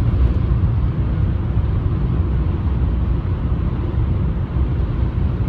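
Steady low rumble of a car driving along a road, tyre and engine noise heard from inside the cabin.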